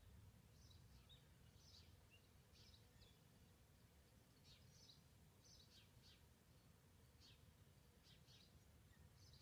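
Near silence outdoors, with faint, short, high bird chirps about once a second over a low background rumble.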